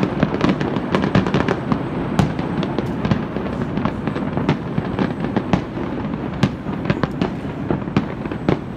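An aerial fireworks display bursting: a dense, continuous crackle of pops and bangs, with louder single reports scattered through it.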